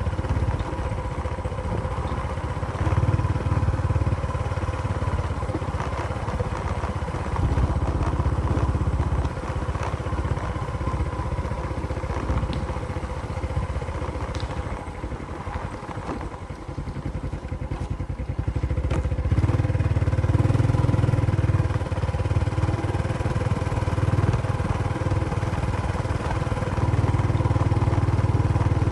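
Motorcycle engine running, with a low rumble that rises and falls and grows louder about two-thirds of the way through.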